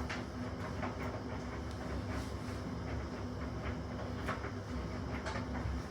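Washing machine running with a steady low rumble and hum, a little noisy, with light clicks now and then.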